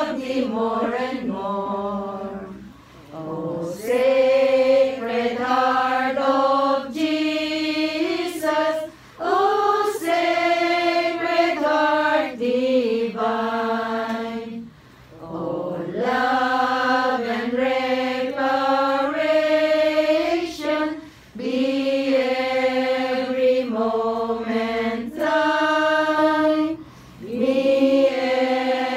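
A small group of voices singing a slow devotional hymn together, in held phrases about six seconds long with a short breath pause between each.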